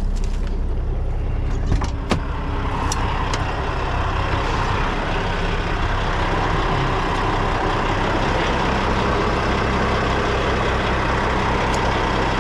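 Semi truck's diesel engine idling steadily, with a few sharp clicks in the first few seconds. A steady hiss comes up about two seconds in and holds.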